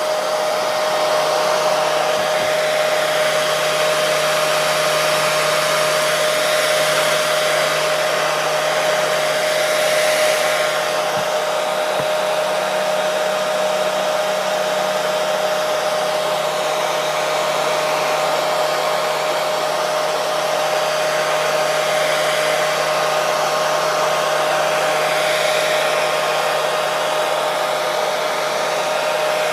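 Electric hair dryer running steadily: a constant airflow rush with a steady motor whine, kept unchanging as white noise to soothe a baby to sleep.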